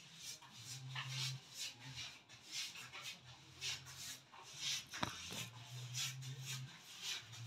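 Paste brush worked over a plaster wall in short repeated swishes, two or three a second, as wallpaper paste is spread. A low steady hum comes and goes underneath, and there is one sharp click about five seconds in.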